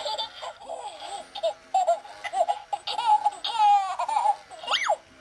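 Baby Alive Wets 'n Wiggles doll's recorded baby laughter and giggly babble from its built-in speaker, in choppy bursts, ending with a quick rising-and-falling squeal near the end.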